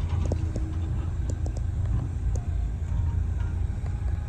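A steady low rumble, with a few faint short tones and light ticks above it.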